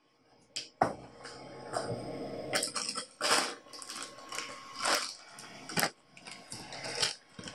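Hands rummaging through small parts: irregular clicks, clinks and rustles. It starts after a brief silence.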